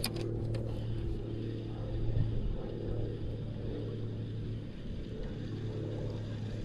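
A motorboat engine running steadily with a low, even hum. A couple of short, sharp clicks come at the very start.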